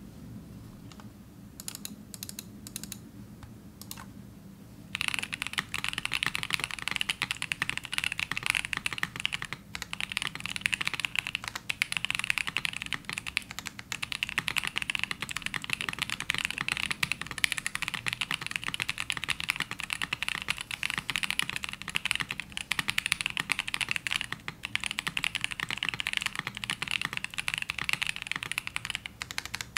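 Fast, continuous typing on a custom mechanical keyboard: an Ai03 Vega with lubed, filmed Gazzew Boba U4t tactile switches on a full aluminium plate and CRP R4 keycaps. A few scattered clicks come first, and dense typing starts about five seconds in.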